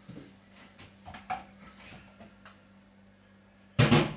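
Scattered light clicks and knocks of kitchen utensils being handled at the counter over a faint steady hum, with one short loud burst near the end.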